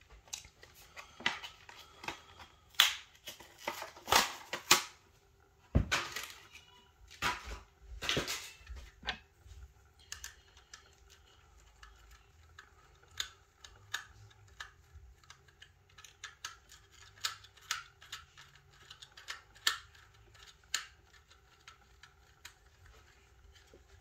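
Irregular sharp clicks, snaps and crackles of plastic being handled, loudest and most frequent in the first nine seconds, then lighter and sparser.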